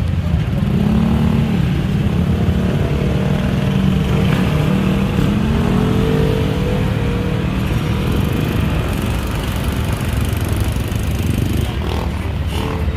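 An engine running steadily, its pitch wavering up and down a little.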